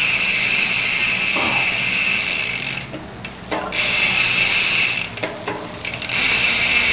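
Maxxone six-pawl rear hub freewheeling, its pawls clicking in a fast continuous buzz. The buzz drops out briefly about three seconds in and again about five seconds in, then comes back.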